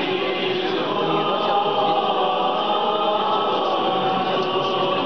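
Orthodox church choir chanting a cappella, voices holding and moving between sustained notes.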